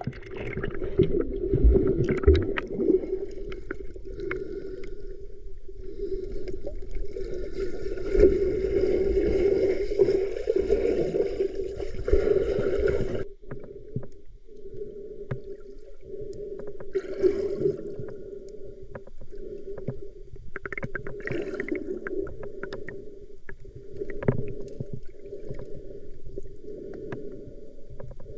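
Muffled gurgling and sloshing of stream water, heard through a camera held at or under the water while snorkelling, with a cut to another stretch of it about halfway through.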